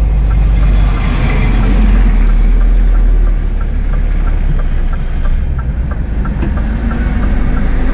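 Scania S500 truck's V8 diesel pulling slowly on a wet clay road: a steady low engine rumble that eases a little about three seconds in.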